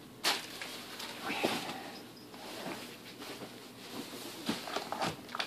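Plastic grocery packaging rustling and items knocking lightly against a cupboard shelf as they are put away, with a sharper knock just after the start.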